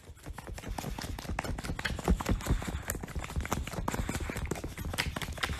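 A boxer dog nuzzling right up against the phone: irregular close knocks, rubbing and rustling on the microphone, with a low rumble underneath.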